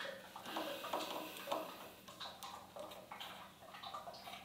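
A micrometer being handled and closed on a turned brass workpiece: faint, irregular clicks and rubbing, over a low steady hum.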